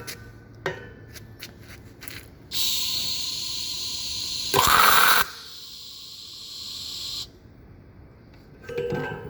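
Soyer BMH-22i stud welder welding a 16 mm carbon steel round bar with argon–CO2 shielding gas: a steady gas hiss starts, the welding arc fires loudly for about half a second, then the hiss carries on for about two seconds and cuts off suddenly. A few light clicks come before it and some handling noise near the end.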